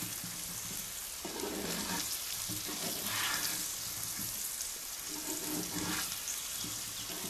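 Stuffed okra sizzling steadily as it fries in oil in a nonstick pan, stirred with a silicone spatula.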